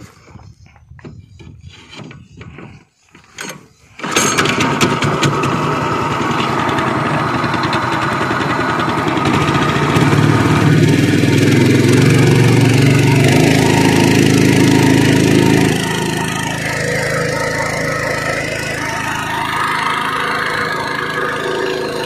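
The small engine of a ketinting longtail boat starts about four seconds in and then runs steadily. It revs higher from about ten seconds in and eases back a little after about sixteen seconds.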